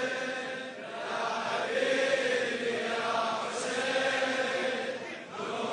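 Male voices chanting a Shia mourning latmiyya in unison, long drawn-out notes with short breaks about a second in and again near the end.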